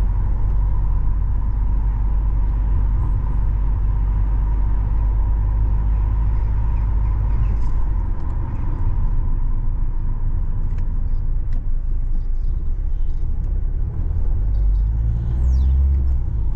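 A car driving along a road, its engine and tyres making a steady low rumble.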